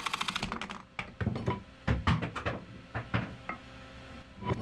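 Bowl gouge cutting an oak bowl on a wood lathe with a rapid, even chatter that stops about half a second in. It is followed by a string of irregular wooden knocks and clunks.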